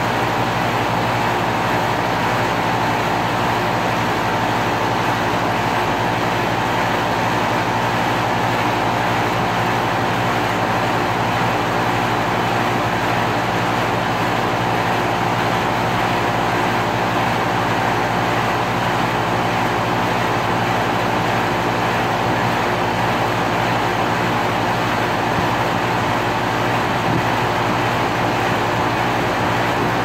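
2001 Carrier 5-ton air conditioner running steadily: a constant low hum under an even rushing noise, with no change in level or pitch.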